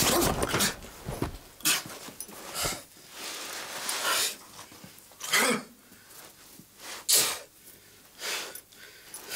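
A man gasping and groaning on the floor after being punched in the face. Short, ragged breaths come every second or so, with one voiced groan about five seconds in.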